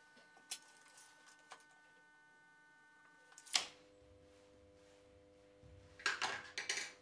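Quiet workshop handling sounds: a few light clicks and a sharp tap about three and a half seconds in, then a brief rustling scrape near the end as a hand moves over the plywood and the table saw's fence.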